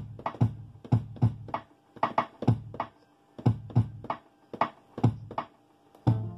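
Sampled sounds triggered one at a time from the pads of a Native Instruments Maschine drum controller. Each hit has a sharp attack and a short pitched decay, and they come in uneven groups of two or three with short gaps. Near the end a full beat with a steady bass comes in.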